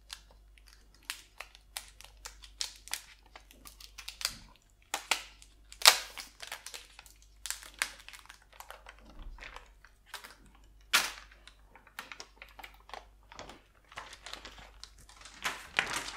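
Protective plastic film being peeled off a new foldable smartphone: irregular crackling and clicking, with a few louder snaps.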